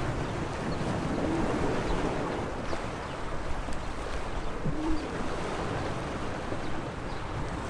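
Small sea waves washing and splashing against the shore in a steady wash of noise.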